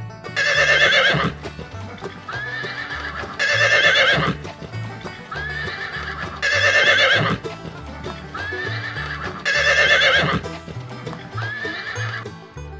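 Horse neighing: a loud whinny followed by a softer call, the same pattern repeated four times about three seconds apart, over background music.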